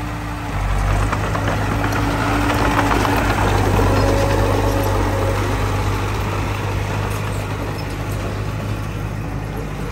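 Heavy diesel engine of earthmoving machinery running steadily, getting louder about a second in and easing off again in the second half.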